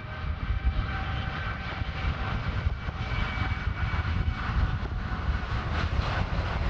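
Boeing 787 Dreamliner's twin turbofan jet engines at takeoff power as the airliner accelerates along the runway: a steady rumble with faint whining tones above it.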